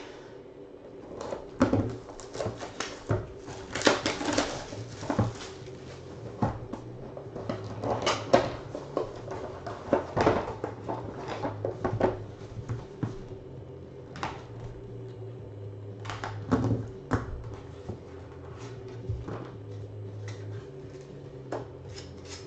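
Hands handling and opening cardboard trading-card boxes and packs: irregular rustles, scrapes and taps, busiest in the first half and again about two-thirds of the way through, over a steady low hum.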